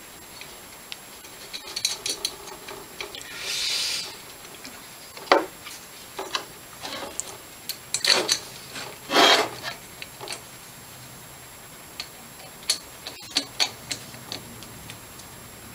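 Metal engine parts handled on a workbench: a Honda GX160 cylinder head and its carburettor adaptor being turned over, set down and worked with a hand tool. Scattered clicks and knocks with a few short scrapes, the longest about a second long.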